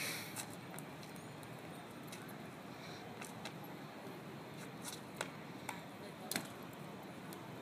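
Steady outdoor background hiss, with a few sharp clicks and taps in the second half as a backpack is handled and set down on a tiled roof.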